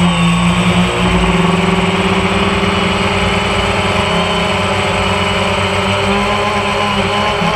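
Camera drone's motors and propellers humming steadily in flight, with small shifts in pitch as the motor speed changes.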